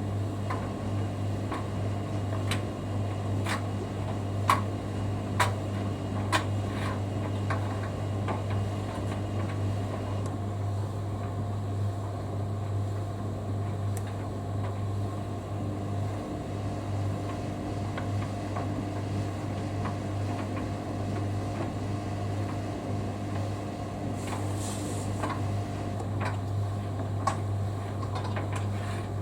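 Hoover Dynamic Next washing machine running mid-wash: a steady low hum with scattered sharp clicks and knocks, most of them in the first several seconds.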